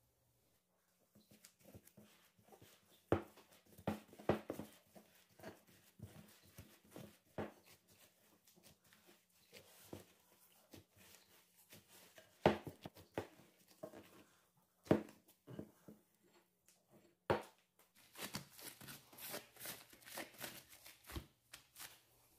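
Soft yeast dough being kneaded by hand in a glass bowl: irregular soft knocks and squishes against the bowl, with a denser stretch of rustling near the end.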